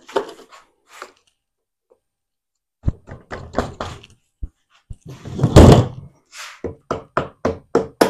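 Rubber mallet knocking a rebuilt pool pump motor home into its pump housing through a rag. Scattered knocks and handling noise come first, then a louder noise lasting about a second a little past halfway, then a quick, even run of blows about four a second.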